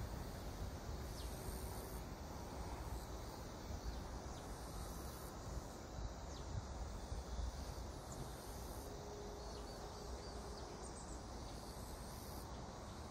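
ITX-Saemaeul electric train receding into the distance, a faint low rumble slowly fading. Summer countryside ambience of insects and a few faint bird chirps.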